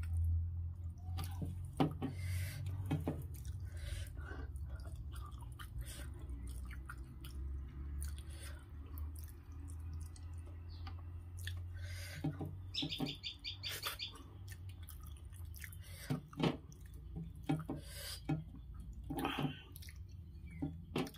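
Close-up mouth sounds of eating with the fingers: wet chewing, lip smacks and finger licking in short scattered bursts. A low steady hum runs under the first half.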